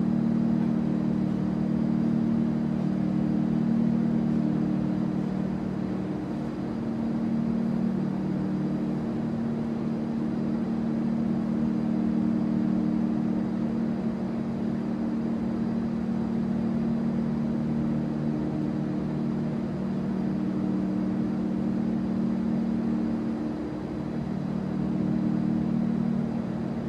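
Bus station ambience dominated by the steady low hum of an idling bus engine, easing off slightly a couple of times.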